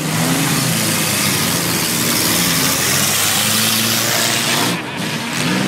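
Several junk race cars' engines running and revving together, their pitch rising and falling, over a loud steady rushing noise.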